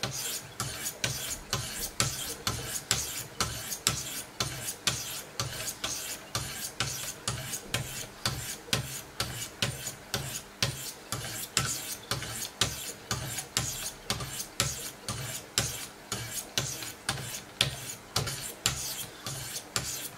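800-grit Wicked Edge diamond stones rasping along an M390 steel knife blade in quick alternating strokes, about two to three a second, sharpening the edge.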